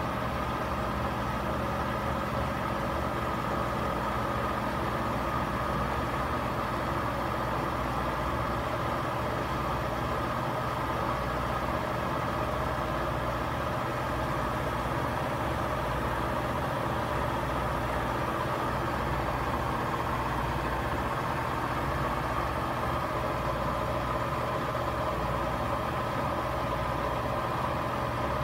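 Front-loading washing machine running its final spin cycle at a steady speed: a constant motor whine over a low drum rumble.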